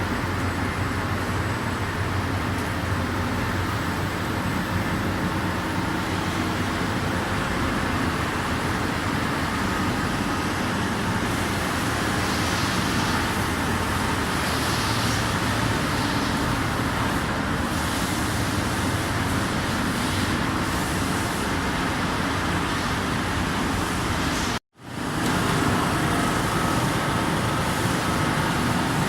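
Steady mechanical hum and hiss of a Pfauter PA 320 NC gear hobbing machine running. It breaks off suddenly for a fraction of a second about 25 seconds in, then resumes.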